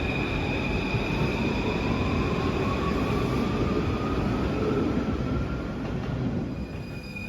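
Steel-wheeled MF 01 train of Paris Métro Line 2 running along the station track with a steady rumble of wheels on rails. A motor whine rises slowly in pitch as it gathers speed, and the sound eases off in the last second.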